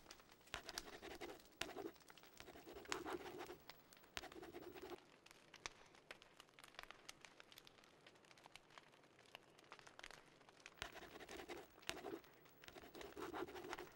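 Faint scratching of a pen on paper in short writing strokes, with a quieter stretch in the middle.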